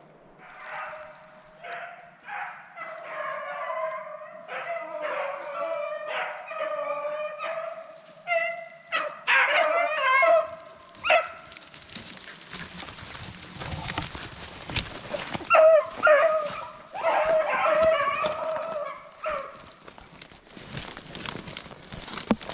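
Rabbit-hunting dogs baying on a chase: a long run of pitched howls and yelps, with a crackling rustle joining about halfway through.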